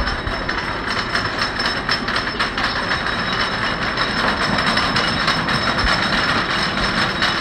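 Zippin Pippin wooden roller coaster train clattering along its wooden track close by: a steady, dense rattle of wheels on track that grows a little louder about halfway through.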